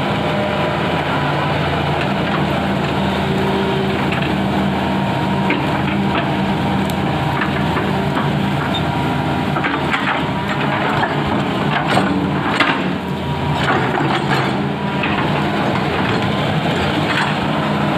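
Hitachi hydraulic excavator's diesel engine running steadily under work, with scattered sharp knocks and crunches from the bucket and arm that bunch together a little past the middle.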